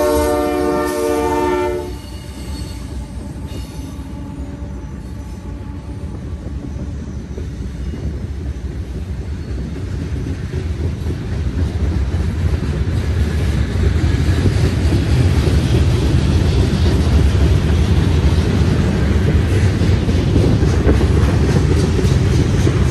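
Diesel locomotive's air horn sounding a chord that cuts off about two seconds in, followed by the low rumble of the train growing steadily louder as it approaches.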